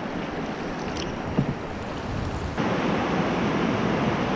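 Rushing, rippling river water around a moving open canoe, with wind buffeting the microphone. A single short knock comes about a second and a half in, and the rush steps up suddenly louder a little past halfway.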